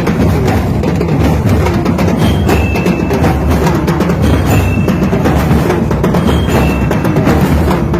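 Ati-atihan street drum band playing a loud, dense, driving beat on drums and other percussion, with a few brief high tones now and then.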